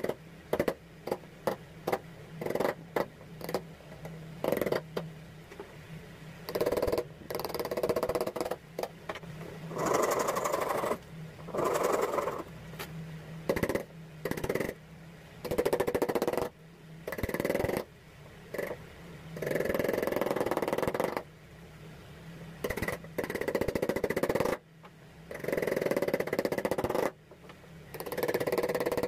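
Steel chisel working a hardwood handle blank. It opens with a run of sharp hammer knocks on the chisel, two or three a second, then gives way to longer scraping strokes of about a second each as the chisel pares shavings from the wood. A low steady hum runs underneath.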